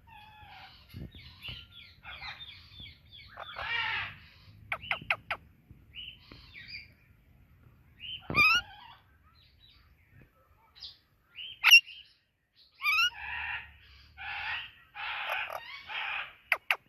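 Indian ringneck and Alexandrine parakeets chirping and calling, an irregular string of chirps and short squawks with a few sharp rising shrieks, the loudest about twelve seconds in.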